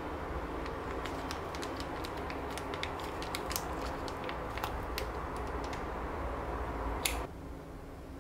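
Soft plastic squeeze pouch of pollock roe crinkling and crackling with many small ticks as it is squeezed out onto toast, over a steady low room hum. A sharper click comes about seven seconds in, after which the background hum drops.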